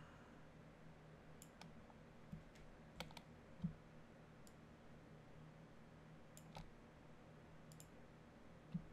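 Faint computer mouse and keyboard clicks, about a dozen scattered at irregular intervals, over a low steady hum.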